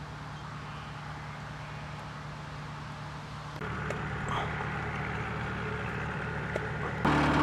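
An engine running steadily, a low hum that gets louder about three and a half seconds in and again near the end.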